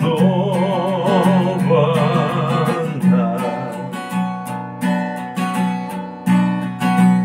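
A man singing to his own acoustic guitar. He holds one long wavering note for about the first three seconds, sings a single line about three seconds in, and then steady strummed chords carry on.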